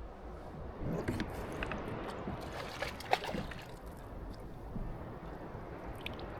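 Water sloshing and gurgling around a kayak hull, with a few short knocks, the sharpest about three seconds in.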